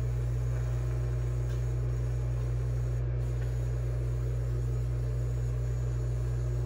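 Steady low electrical hum with no stitching, and faint handling sounds as canvas is turned by hand.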